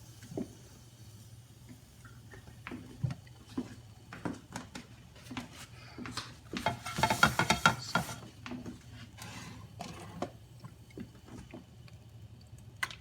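Kitchen handling sounds: scattered light clicks and knocks of utensils and containers, with a dense rattling flurry about seven seconds in, over a low steady hum.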